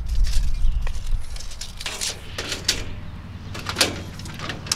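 A steel tape measure being handled and drawn up a wooden post: scattered rustles and several sharp clicks, over a low rumble that fades after about a second.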